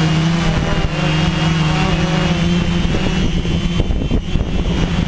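TBS Discovery quadcopter's motors and propellers buzzing steadily in flight, heard through the onboard GoPro's microphone, with a brief dip in level about four seconds in.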